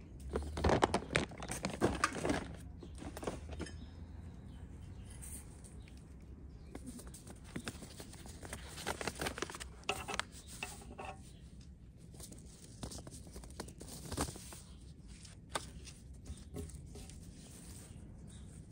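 Gloved hands handling paper seed packets and brushing through potting soil while sowing carrot seeds: irregular crinkling, rustling and scraping, loudest in the first couple of seconds.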